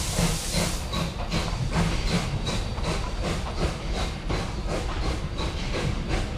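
Steam hissing from a narrow-gauge museum steam train, cutting off about a second in. Its wooden passenger carriages then roll past with a low rumble, the wheels clicking over the rail joints two or three times a second.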